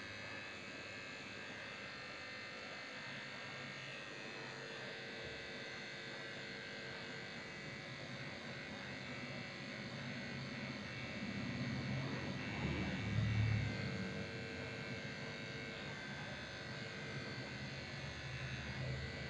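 Electric dog grooming clippers running with a steady buzz. The sound swells louder with a low rumble for a couple of seconds a little past the middle.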